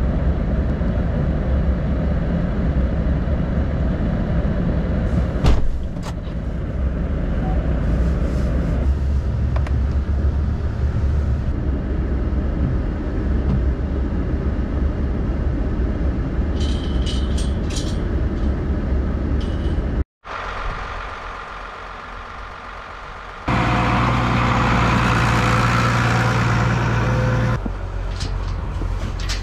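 Vehicle engine idling steadily, heard from inside the cab, with a few brief metallic clinks. After a short break the sound drops lower, then a louder steady noise runs for about four seconds.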